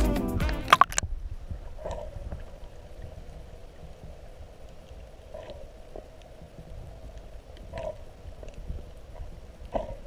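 Background music ending about a second in, giving way to the muffled sound of a GoPro in its waterproof housing underwater: a faint low rumble of moving water with scattered clicks and four short, louder bursts of water noise.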